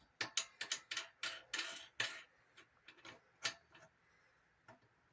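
Quick run of sharp metallic clicks and taps, about a dozen in the first two seconds and a few scattered ones after: a loose bolt and big washer being fitted and jiggled by hand.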